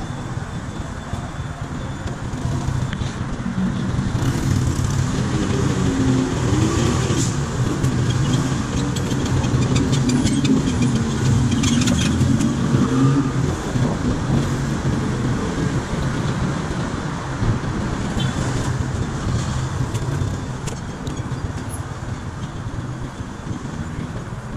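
Motorcycle engine running while riding in city traffic, with the noise of surrounding cars and trucks; it gets louder about four seconds in and eases off again in the second half.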